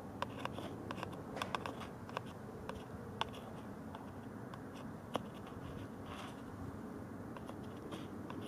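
Faint scattered clicks and light scrapes of a screwdriver tip probing in a small cup of compressor oil, over a low steady background hum.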